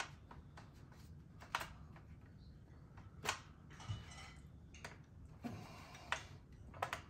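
Hard plastic clicks and knocks from the parts of a Johnny Seven OMA toy gun being handled and pushed together, separate sharp clicks about once a second.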